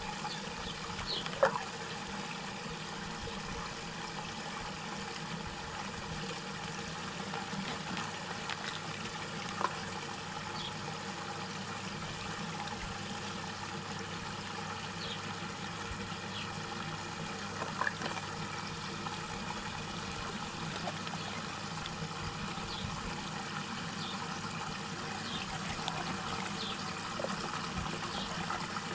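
Water rushing steadily as it swirls down a whirlpool vortex in a tub. A few brief splashes break in as small plastic toys drop into the water: the loudest about a second and a half in, others around ten and eighteen seconds in.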